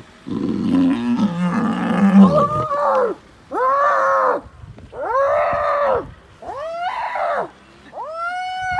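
Lion growling as it mauls a hyena, then the hyena gives a string of high squeals in distress, each rising then falling, about one every second and a half.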